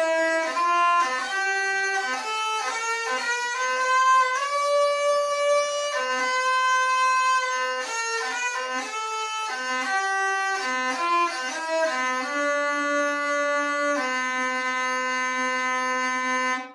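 Single-string organistrum (an early wheel-bowed fiddle, the ancestor of the hurdy-gurdy) playing a melody: the turning wheel sounds one string in a steady, overtone-rich tone. The pitch steps from note to note, some held for a couple of seconds, as fixed bridges along the string select the notes of a diatonic scale, and it breaks off suddenly at the end.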